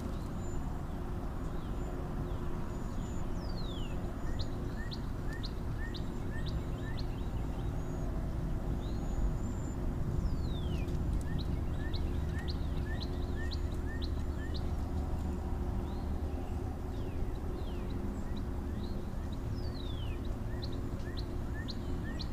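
Birds calling from the riverbank: many short high chirps, runs of small notes about three a second, and now and then a long falling whistle, over a steady low rumble.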